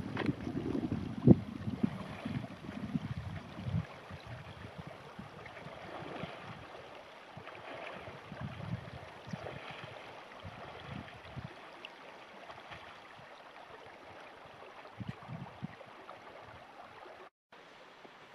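Shallow river rushing over stones, a steady hiss of water, with wind buffeting the microphone in the first few seconds.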